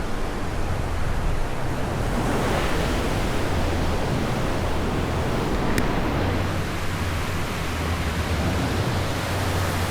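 Ocean surf breaking on the shore, a steady rush of waves.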